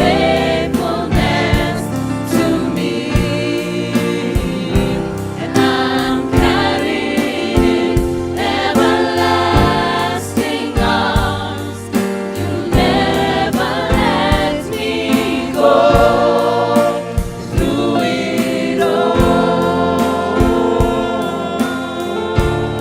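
A gospel worship song: a choir singing together over a band with a steady drum beat.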